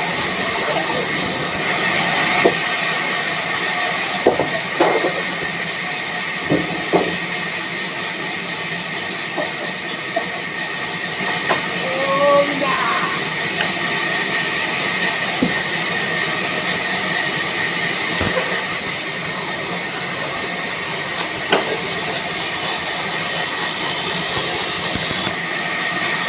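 Band sawmill machinery running steadily, a continuous hiss with a steady high whine, broken by a few sharp knocks.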